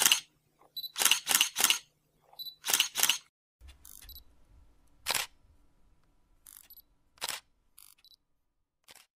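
Camera shutter clicks, a dozen or so short sharp clicks in quick runs with silence between them, sparser and fainter in the second half.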